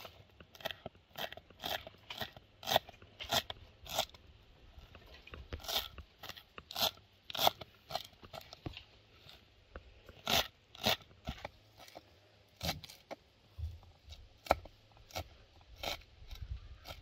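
Kitchen knife chopping fresh parsley on a wooden cutting board: crisp, crunchy cuts at an uneven pace, about one or two a second, with short pauses between runs.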